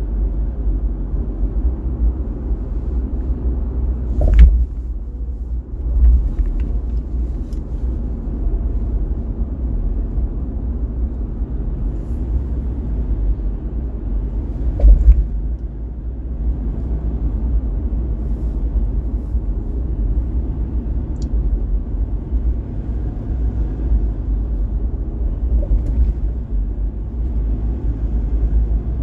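Steady low rumble of a car driving on an expressway, road and engine noise together. Sharp thumps come about four seconds in, again at six seconds, and the loudest near fifteen seconds.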